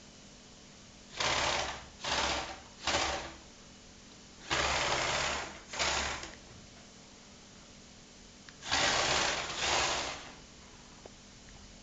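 Electric motors and gear trains of a Lego Technic 8275 remote-controlled bulldozer whirring in seven short bursts, each about half a second to a second long, as its functions are driven from the infrared remote.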